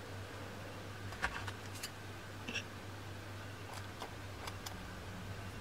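Faint scattered clicks and light handling noise as cotton wick is tucked around the coils of a stainless-steel quad-coil rebuildable dripping atomizer with fingers and a small tool, over a steady low hum.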